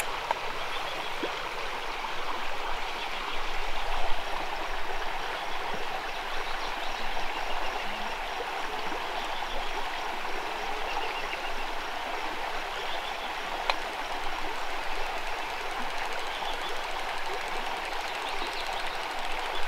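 Shallow creek water running and rippling over a sandy, stony bed: a steady rushing with no pauses.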